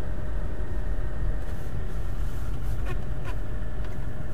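Lada Kalina wagon heard from inside the cabin, a steady low rumble of the engine and running gear as the car creeps along in first gear. The engine and gearbox are still cold-soaked from −33 °C frost, with the gear oil thick.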